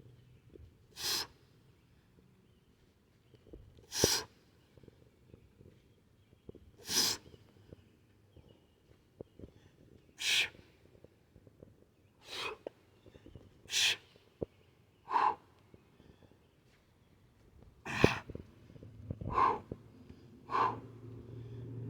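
A kettlebell lifter's sharp, forceful exhales, about ten short blasts spaced one to three seconds apart, in time with reps of double 32 kg kettlebell swing snatches. A low steady hum comes in near the end.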